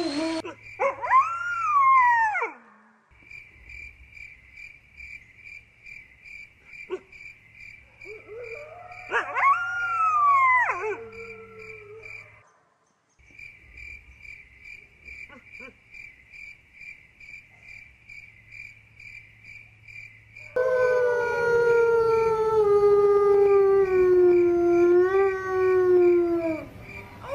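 Wolves howling. A single howl rises and falls about a second in, then several voices overlap in a second rising-and-falling howl around ten seconds in. In the last third comes one long, lower howl that slowly falls in pitch.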